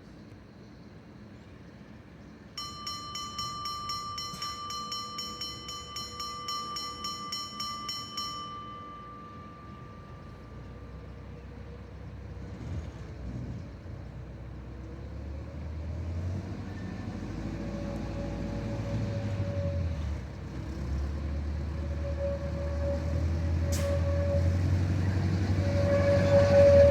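GHE T1 diesel railcar's bell ringing in rapid strokes for about six seconds, its tone dying away afterwards. Then the railcar's engine runs up as it pulls away, growing steadily louder, with a steady tone sounding on and off and a single sharp click near the end.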